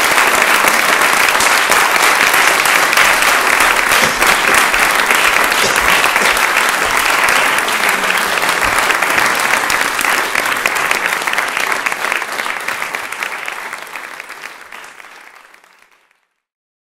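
Audience applauding: dense, steady clapping from a concert crowd that fades out over the last few seconds.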